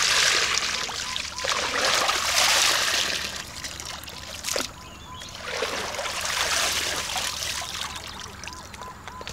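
Water pouring and trickling out through a plastic colander lifted from shallow muddy water, in three surges of a second or two each, as the mud is sieved away. A single sharp click comes about halfway through.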